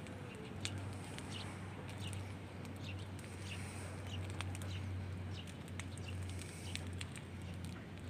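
Outdoor ambience: small birds chirping in short, repeated calls over a steady low hum.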